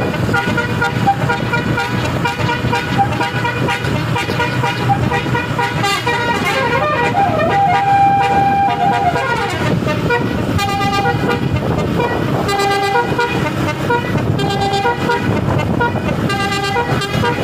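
Bus "telolet basuri" multi-note air horn playing a tune: a run of short and held tones stepping in pitch, with one long held note about eight seconds in, over a steady low rumble.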